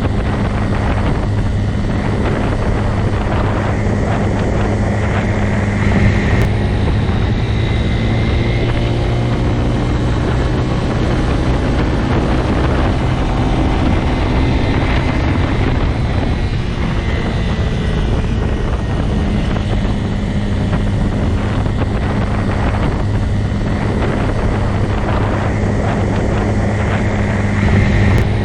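Motorcycle engine running at a steady speed, a constant low drone with brief swells in level about six seconds in and near the end.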